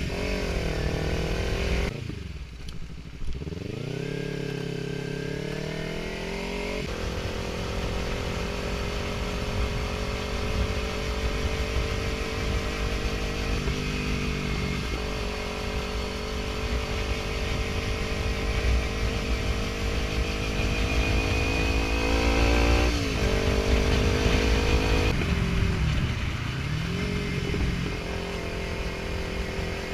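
Kawasaki Ninja 300's parallel-twin engine running under way: the revs drop and climb again through several gear changes, then hold fairly steady between shifts.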